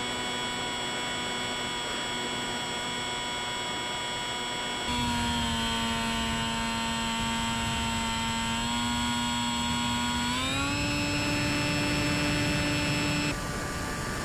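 Electric motor and propeller of a Bixler 3 FPV model plane, a steady pitched whine that steps up louder about five seconds in as throttle is added, rises in pitch around ten seconds in, then drops back near the end.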